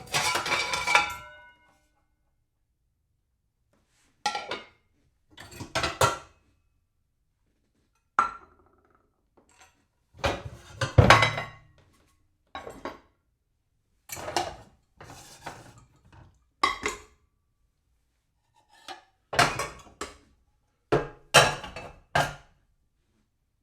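Ceramic dishes being shuffled and stacked in short bursts of clattering and clinking. A longer rattle comes at the start, the loudest clatter about eleven seconds in, and the rest are brief handlings separated by silence.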